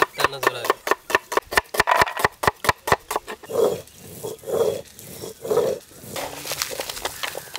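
Stone roller worked over a red spice paste on a flat stone grinding slab. A fast run of sharp clicks gives way, about halfway through, to three slower grinding strokes about a second apart. Near the end, sliced onions crackle as they are tossed by hand in a pot.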